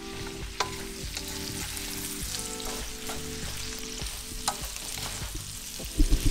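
Sliced onion and green and red bell peppers sizzling in bacon and sausage fat in a nonstick wok, stirred with a wooden spatula that scrapes and knocks against the pan now and then. A few louder knocks come near the end.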